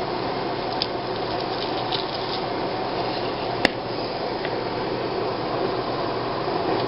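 Diced peppers frying in oil in a hot pan, a steady sizzle, with a few light clicks and one sharp knock about three and a half seconds in.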